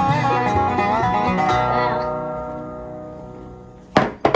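Background music, a plucked-string tune that fades out over the second half. A short, loud, noisy burst comes near the end.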